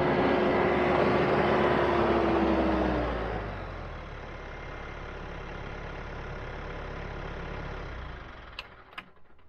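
TYM 574 Hydro C tractor's diesel engine running as the tractor drives up, with a whine that drops in pitch as it slows. It settles to a quieter idle about three seconds in, then dies away near the end, followed by a couple of sharp clicks.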